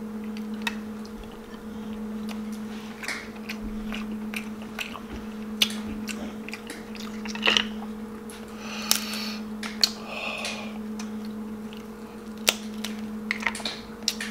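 Close-up eating of boiled crab: crab shell snapping and crackling as legs are pulled apart, mixed with wet chewing, in scattered sharp clicks and short crunches. A steady low hum runs underneath.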